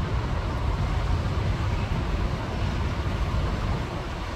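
Powerful storm wind blowing in gusts and buffeting the microphone: a deep, wavering rumble under an even rushing hiss.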